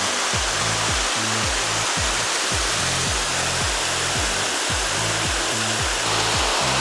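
Waterfall rushing steadily, with background music carrying a steady bass beat of about two thumps a second.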